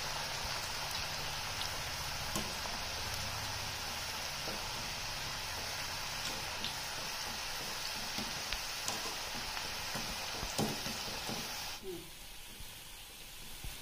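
Cabbage pakodas deep-frying in hot oil in a kadai: a steady sizzle, with a few light metal clicks as a wire spider strainer moves through them. The sizzle turns abruptly quieter and duller about twelve seconds in.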